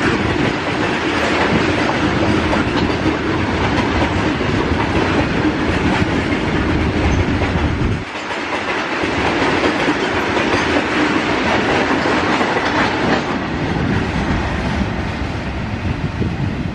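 A long freight train of open-top wagons rolling past close by, with a steady rumble and the clickety-clack of wheels over the rail joints. The deep low rumble thins about eight seconds in.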